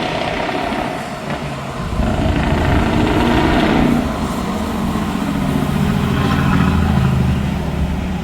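Open-piped V8 truck engine revved hard and held at high revs for about two seconds. It eases briefly, then is held up again for about three seconds before dropping back.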